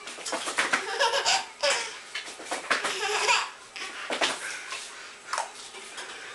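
A toddler laughing hard in fits of belly laughs and giggles, coming thick for the first few seconds and then in a few separate bursts.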